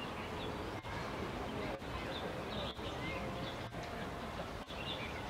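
Steady low background rumble with faint, distant human voices and a few faint high chirps.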